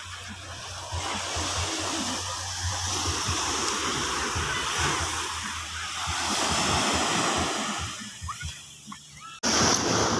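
Sea waves breaking and washing up a sandy beach, a steady hiss of surf that swells and eases twice. Near the end it cuts abruptly to louder, closer surf.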